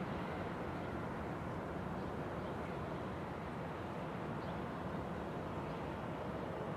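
Steady outdoor background noise, a low even hiss and rumble with no change, with a few faint short high chirps.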